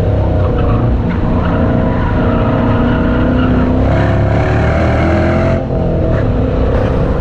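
Dodge Challenger's 5.7 Hemi V8 running hard at high revs on track, with the tires squealing under cornering load.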